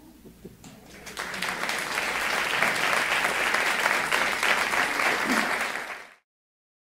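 Audience applauding after a reading. The clapping builds about a second in, holds steady, and is cut off suddenly near the end.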